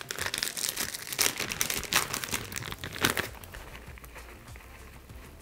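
Plastic bag of shredded cheese crinkling as it is pulled open and shaken out, with sharp crackles for about three seconds, then quieter rustling.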